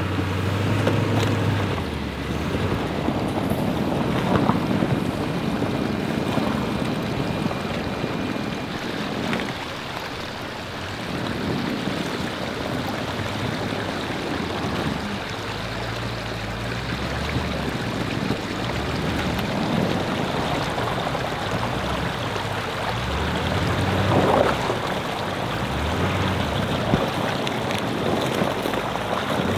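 Truck driving a rough backroad: a steady wash of engine and tyre noise, the low engine note shifting up and down, with a few knocks and jolts along the way.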